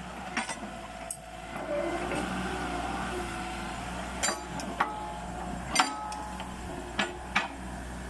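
A mini excavator's engine runs steadily under hydraulic load, with a faint whine that shifts in pitch as the arm and bucket move. Several sharp metal clanks punctuate it.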